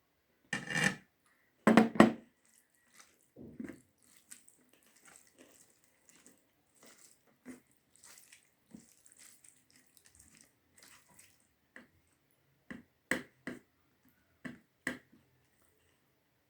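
Close-miked mukbang eating: wet smacks and squelches of a mouthful of rice with dal and curry being chewed. Two loud bursts come in the first two seconds, faint crackling follows, and a cluster of sharp clicking smacks comes near the end.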